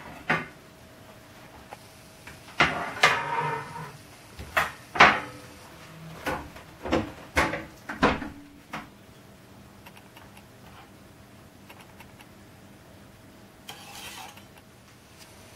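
Metal bakeware and kitchen utensils knocking and clinking on a countertop, a dozen or so separate strikes over the first nine seconds, a few ringing briefly, then quiet. Near the end a faint scrape as a metal palette knife slides under the baked biscuits.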